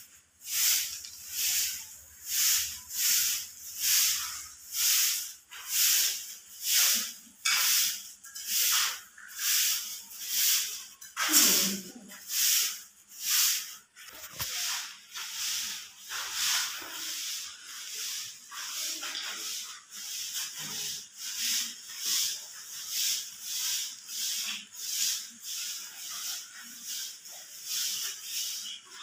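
Broom sweeping a concrete floor in steady, rhythmic strokes about one a second, with one louder scrape about twelve seconds in; the strokes grow softer in the second half.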